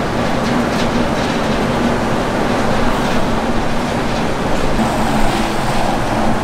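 Loud, steady city street noise: a dense rumble and hiss with a low hum running through it.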